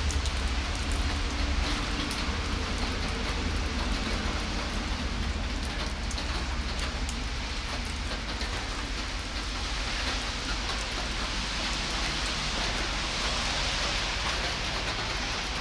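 Steady rain falling on wet asphalt, an even hiss without pause, with a low rumble underneath that is strongest in the first few seconds.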